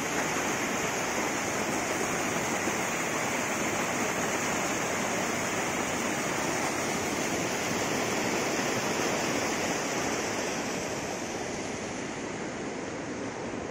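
Monsoon-swollen river in flood, fast brown water rushing and churning through rapids in a steady wash of noise, easing off a little near the end.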